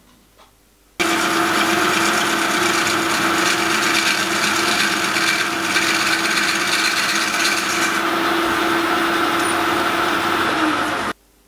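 Metal lathe turning a square boiler-dome casting round: the cutting tool works steadily against the spinning part over a steady motor hum. The sound starts suddenly about a second in and cuts off abruptly near the end.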